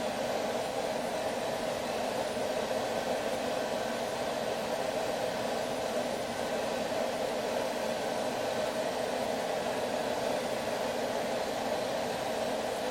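Forge running steadily, a constant rushing hum from its burner or air blower as it heats the railroad spike.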